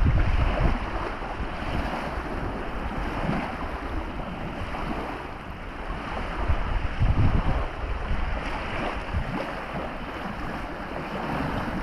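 Wind buffeting the microphone in uneven gusts over a steady rushing noise, the strongest gust about seven seconds in.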